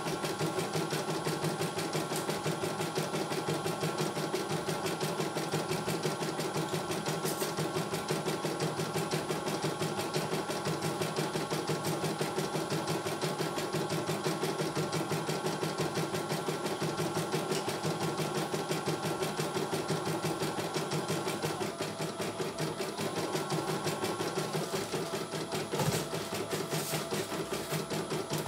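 CNY E900 computerised embroidery machine stitching a design, its needle running in a rapid, even rhythm. Its running note changes about three quarters of the way through, and there is a single sharp click near the end.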